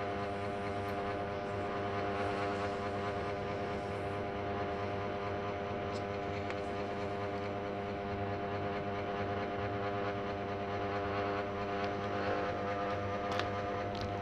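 A steady mechanical hum made of several held tones, like a fan or motor running in the room. Near the end come a couple of faint light clicks of small steel trigger parts being handled.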